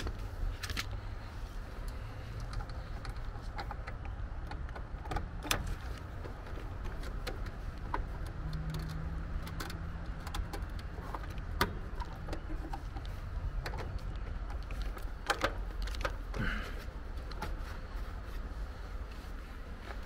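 Scattered light clicks and small rattles of hands handling wires and small tools in an air conditioner condenser's control panel, over a steady low rumble.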